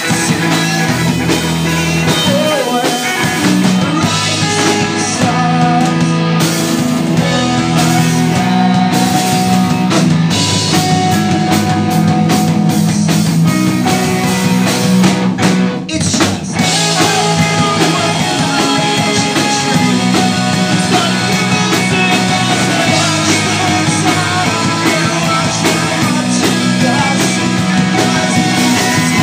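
Live rock band playing: electric guitars and drum kit with a singing voice, the music dipping for a moment about halfway through.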